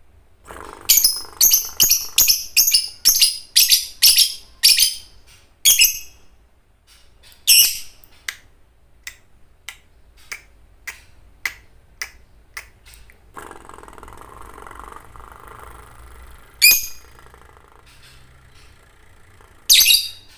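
Lovebird calling: a run of loud, shrill chirps about two a second for several seconds, then faint scattered ticks and two more single shrill calls near the end.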